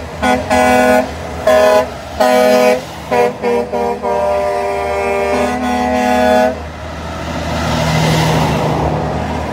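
Truck air horns sounding a string of chord-like blasts, some short and rapid and one held for about a second, from an approaching convoy of prime movers. Near the end a truck passes close by with a swelling then fading rush of engine and tyre noise.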